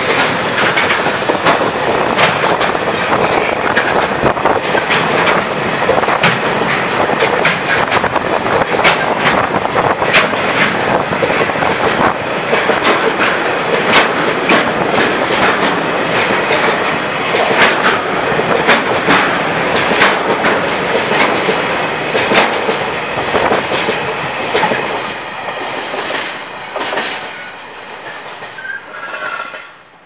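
Freight train wagons rolling past at close range: a steady rumble with the wheels clicking rapidly over the rail joints. The sound fades over the last few seconds as the end of the train passes.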